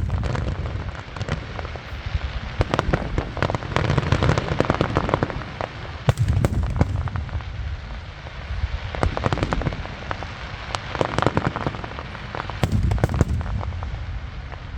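Aerial fireworks display: a dense, continuous crackling and popping, broken every few seconds by clusters of deep booms as shells burst.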